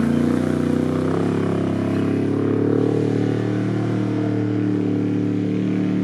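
An engine running steadily and loudly at a fairly even pitch, changing only slightly.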